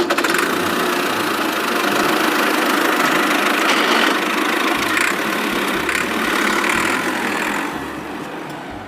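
A small motor running steadily; it cuts in abruptly and fades over the last second.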